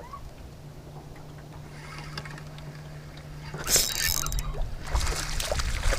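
Steady low hum of an electric trolling motor pushing a jon boat. A loud burst of noise comes about two-thirds of the way in, and low thumps follow near the end.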